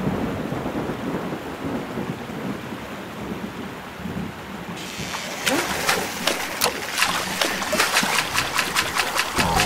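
Cartoon storm sound effects: a rumble of thunder dying away at the start over steady heavy rain. From about halfway, many sharp drips and splashes on water join in, coming faster toward the end.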